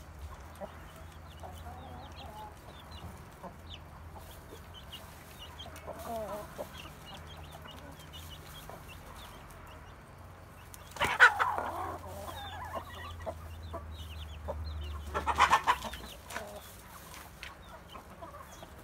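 A flock of hens clucking while they feed, with short high peeps throughout and two loud calls, about eleven and fifteen seconds in.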